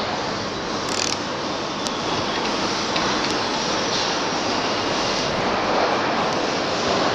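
Steady, loud mechanical rushing noise of running machinery or a vehicle, with a short sharp click about a second in.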